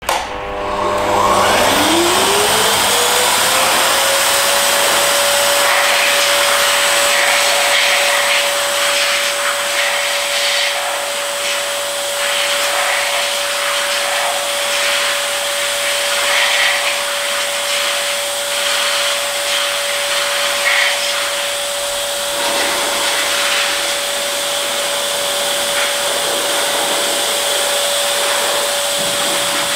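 Electric car-drying air blower spinning up with a rising whine over the first few seconds, then running at one steady pitch with a loud rush of air as it blows the water off a washed car.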